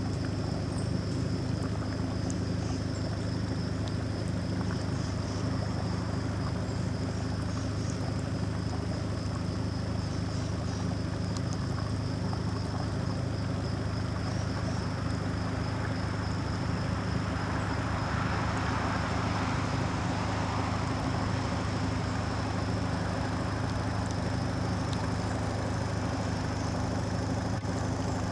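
An engine idling with a steady low hum, over a faint, steady high-pitched whine.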